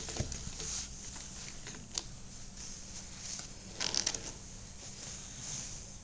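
Soft rustling and handling noise as hands and a paper towel rub against a long-haired Persian cat's fur. There is a light click about two seconds in and a louder spell of rustling about four seconds in.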